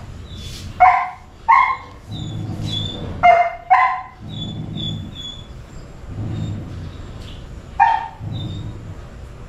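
A dog giving five short, sharp barks, in two quick pairs and one more near the end, over a low rushing sound that swells and fades about every two seconds.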